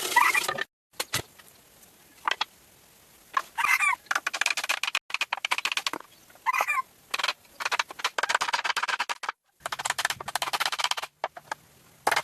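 Domestic fowl calling: three short, clipped calls over a dense, rapid crackling noise. The sound comes in stretches that stop and start abruptly.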